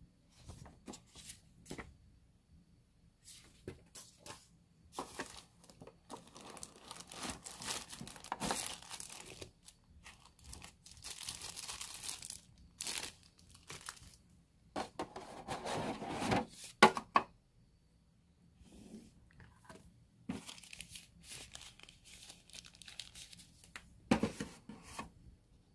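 Product packaging being opened by hand: irregular spells of rustling, crinkling and tearing of plastic wrap and paper, with a sharp click about two thirds of the way through.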